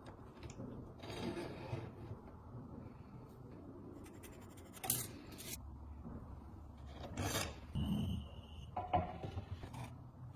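Scraping and rubbing on a hard surface in several separate short strokes, with a brief squeak-like tone about eight seconds in.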